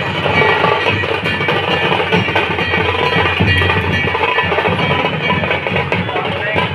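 Dhol drums beating with shehnai playing over them: loud, continuous festive band music.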